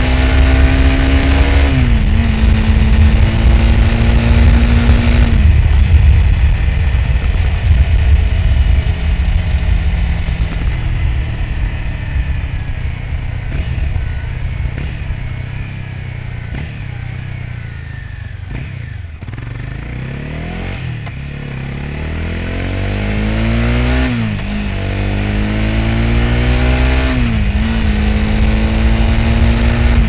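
Honda CB300F's single-cylinder engine under way, accelerating with upshifts about two seconds and five seconds in, then easing off and slowing through the middle, before pulling away again with further upshifts near the end.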